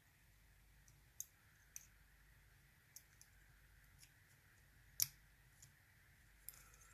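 Faint, scattered small metallic clicks, about six of them with the loudest about five seconds in: pin tumblers and a small tool tapping against an American A1100 padlock as its pin chambers are re-loaded.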